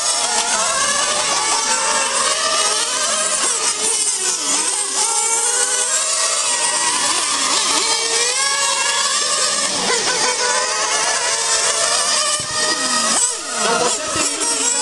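Several radio-controlled model racing cars lapping a track, their small motors buzzing at high, overlapping pitches that keep rising and falling with the throttle.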